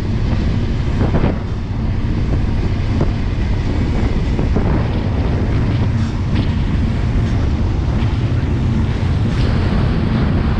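Strong wind buffeting the microphone over the steady low rumble of the moving iron ore train, heard from on top of an open ore wagon.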